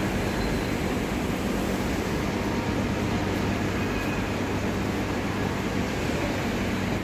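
Steady railway-station platform ambience: a constant low hum with a hiss over it, with no single event standing out.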